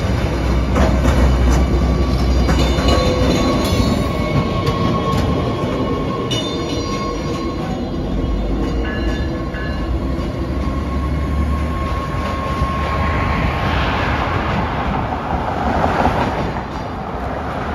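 Stadler GTW diesel light-rail railcar passing close by on street track: a deep diesel rumble, with wheels clicking over rail joints in the first several seconds and a steady thin whine that fades out about twelve seconds in. A broad hiss swells near the end.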